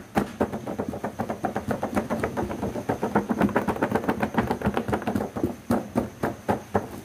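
Rapid, irregular clicks and crackles of plastic toy packaging and pieces being handled during an unboxing.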